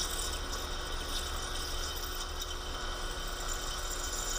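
Do-All milling machine's spindle running steadily, with a steady hum and hiss, as a number 7 twist drill feeds into bronze braze on a cast iron part, cutting a tap-size hole for a 1/4-20 thread.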